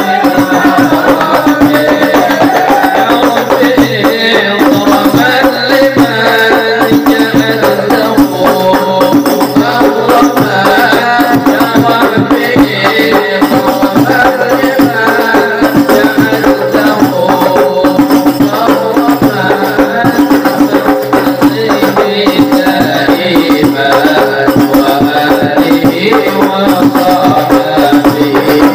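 Habsyi ensemble performing sholawat: voices singing in Arabic over a steady, dense rhythm of hand-struck frame drums.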